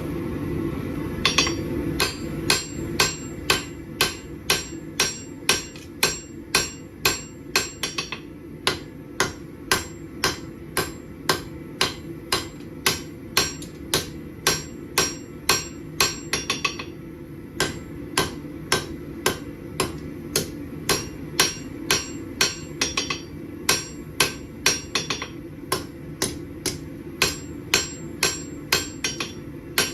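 Blacksmith's hammer striking hot steel on an anvil, drawing out a knife blade: sharp ringing blows about twice a second, with two brief pauses. A steady low hum runs underneath.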